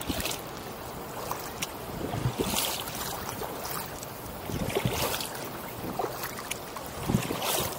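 Kayak paddle strokes dipping and splashing in calm water, a swell of splashing about every two and a half seconds, with scattered light knocks and drips around the plastic kayak.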